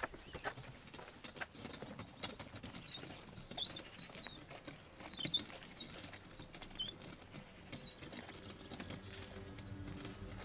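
Footsteps and a hand-pushed wheelbarrow crunching and knocking along a garden path in irregular clicks, with a few short bird chirps in the middle.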